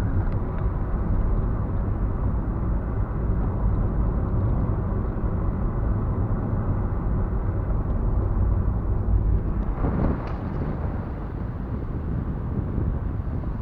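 A car driving along, a steady rumble of engine and tyres on the road, with a brief louder rush about ten seconds in before it eases off a little.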